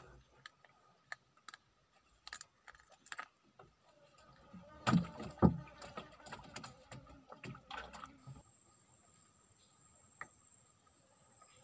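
Scattered clicks and knocks of handling in a small wooden boat while a caught fish is unhooked, with two louder thumps about five seconds in. It goes quieter after about eight seconds.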